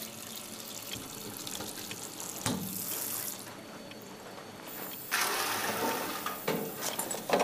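Water running from a kitchen tap, with a few clicks and knocks, louder from about five seconds in.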